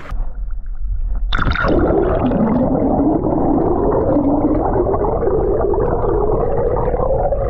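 Muffled underwater sound from an action camera held below a river's surface. A sudden splash-like burst comes about a second in, then a loud steady rumble of water with a wavering low hum that slowly rises.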